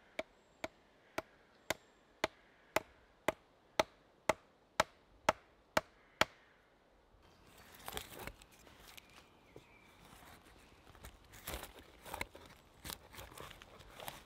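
A wooden baton knocking on the spine of a knife about twice a second, a dozen sharp strikes that grow louder, driving the blade down through a stick (batoning). After about seven seconds, a knife blade scraping and cutting into the bark and wood of a log in short, irregular strokes.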